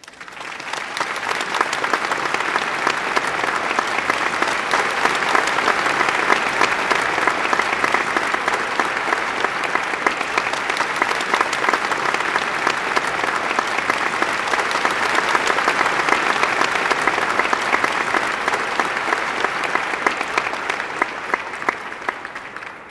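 Crowd applause, a dense steady clapping that swells up at the start and fades away near the end.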